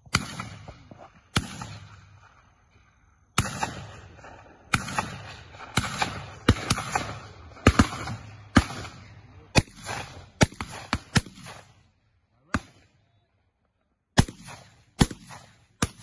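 Shotguns firing at flying birds: a long run of shots, some in quick pairs and some fainter than others, each trailing off in an echo.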